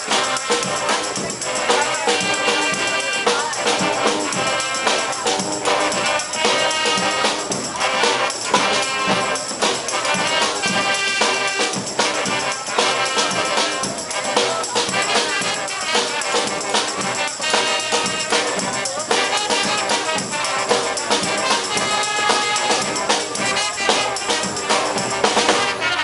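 Street brass band playing, trumpets and trombones over percussion keeping a beat.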